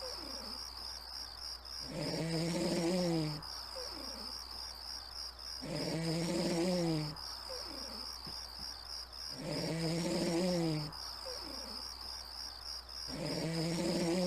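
Snoring: four long snores about every four seconds, each about a second and a half with a slightly falling pitch. Crickets chirp steadily throughout.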